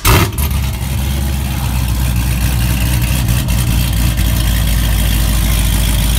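2006 Pontiac GTO's 6.0-litre LS2 V8 catching with a brief rev flare, then settling into a loud, steady idle through its exhaust.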